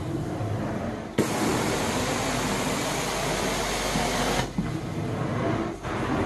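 Hot water extraction wand on carpet: a steady rushing hiss of suction. It cuts in abruptly about a second in, dips briefly twice near the end, and picks up again each time the wand is lifted and set down between strokes.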